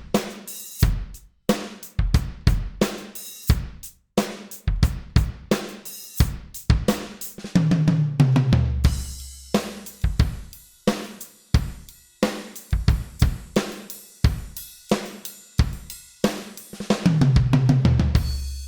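Drum kit groove: kick, snare and hi-hat from a Millenium MPS1000 electronic kit voiced by Addictive Drums 2, played with low-volume cymbals picked up by a stereo pair of condenser mics. A steady beat is broken twice by a fill that steps down the toms, once about eight seconds in and again near the end.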